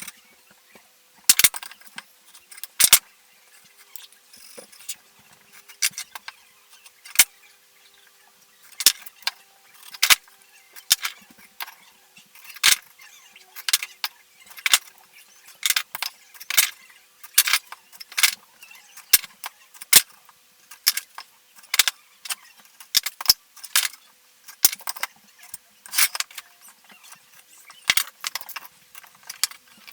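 Irregular sharp clacks and clinks of hard objects knocking together, several a second at times: workshop handling of tools, clamps and wood pieces.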